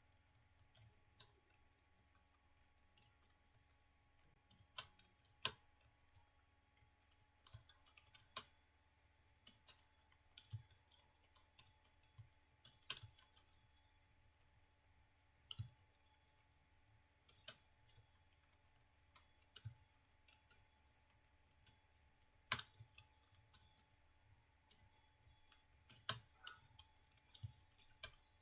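Computer keyboard keys being pressed slowly and unevenly, faint clicks about once a second with pauses between them, over a faint steady hum.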